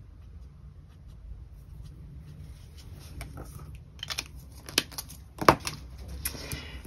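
Faint scratching of a marker tip colouring on paper, then a few sharp plastic clicks and clacks as a felt-tip marker is capped and the next marker is picked out from the others.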